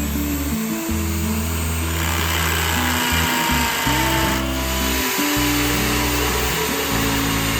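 Background music with a stepping bass line, over a power tool such as a drill motor running.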